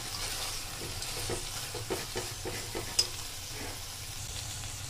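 Vegetables, soya chunks and mint frying in oil in an aluminium pressure cooker, a steady sizzle, while a metal spoon stirs them and clicks and scrapes against the pot's sides, mostly in the first three seconds.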